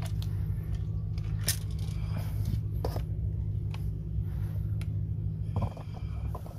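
Shot-up aluminium beer cans handled and turned over by hand, giving a few sharp metallic clinks and crinkles, over a steady low hum.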